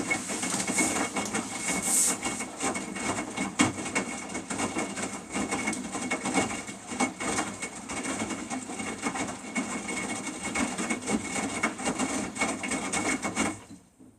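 Samsung washing machine running, its drum giving a steady rattling, clattering noise that cuts off suddenly near the end.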